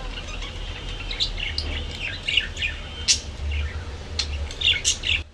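Budgerigars chirping: many short, quick, high-pitched calls, over a steady low hum.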